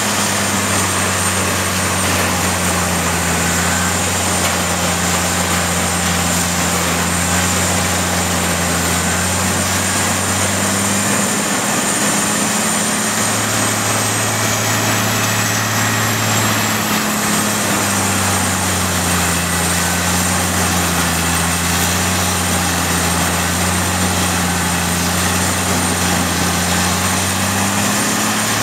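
Peterson 5710C horizontal grinder running under load as it grinds logging slash: a steady, loud diesel drone mixed with grinding noise, the engine pitch shifting slightly a few times.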